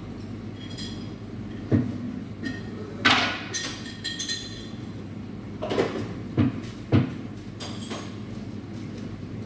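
Coffee-bar work clatter: cups, glassware and metal tools clinking and knocking on the counter, with about five sharp knocks, the loudest about three seconds in. A steady low hum runs underneath.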